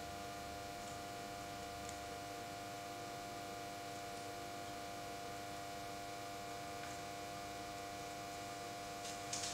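Steady electrical mains hum: several held tones over faint room tone, unchanging throughout.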